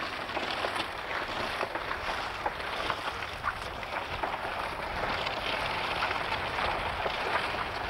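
Wind buffeting a camcorder microphone: a steady rushing noise with small crackles throughout.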